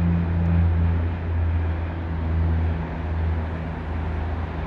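Beech 99A Airliner's twin Pratt & Whitney PT6A turboprops and propellers giving a steady low drone as the aircraft climbs away after takeoff, slowly fading as it recedes.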